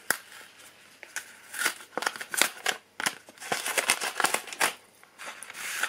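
Cardboard and paper watch packaging being handled and opened: irregular rustling and crinkling, with a sharp click at the very start.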